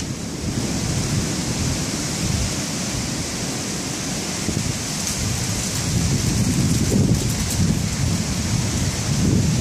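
Derecho thunderstorm: a steady hiss of wind and rain, with a low rumble that swells about six seconds in and again near the end.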